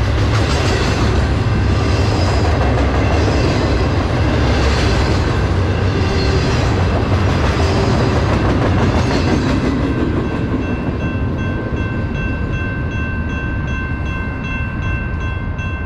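Double-stack well cars of a freight train rolling past close by: a steady rumble of steel wheels on rail that swells every second or two as trucks pass. About ten seconds in the last car goes by and the rumble eases, leaving a steady ringing of several tones with a quick regular pulse, like a grade-crossing bell.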